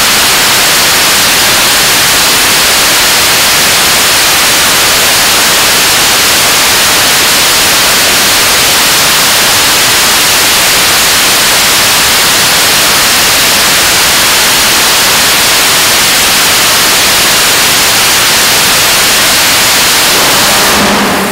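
KSLV-II 7-tonf-class liquid-oxygen/kerosene rocket engine firing on a test stand: a loud, steady rushing noise with no pitch to it, cut off suddenly near the end.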